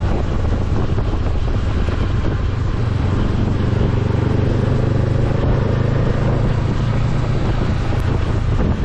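A motor vehicle's engine running steadily, with wind noise on the microphone.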